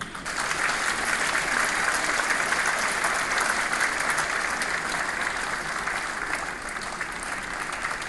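Large audience applauding steadily.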